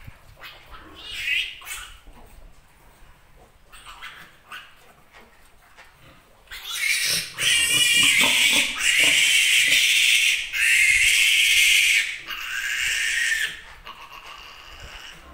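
Piglet squealing while being held and restrained for an iron injection: a short squeal about a second in, then about four long, loud, high-pitched squeals back to back through the second half, dying away near the end.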